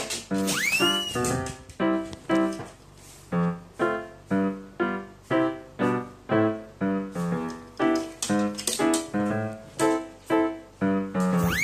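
Background piano music playing a bouncy tune in short, evenly spaced notes, with a whistle-like glide that rises and falls about a second in.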